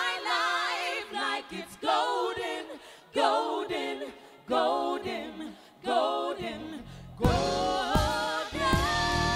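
A vocal group of soul/gospel singers singing a short a cappella break in harmony, in separate phrases with short gaps between them. About seven seconds in, the band comes back in under a long held chord.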